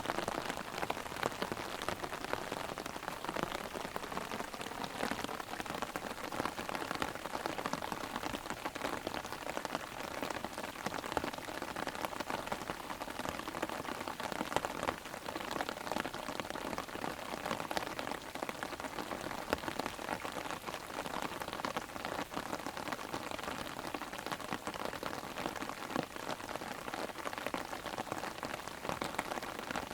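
Heavy rain drumming steadily on an umbrella overhead: a dense, even patter of drops on the fabric, close to the microphone.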